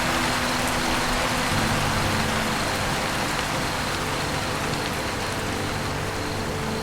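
Steady rain falling on a roof: an even patter. Underneath it are low sustained tones that change pitch about a second and a half in.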